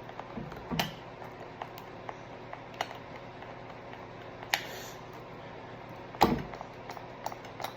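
Light clicks and taps of a lotion bottle and mixing bowl being handled while lotion is added to glue, with a louder knock about six seconds in.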